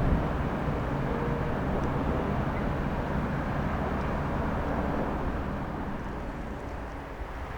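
A passing train's rumble, slowly fading away.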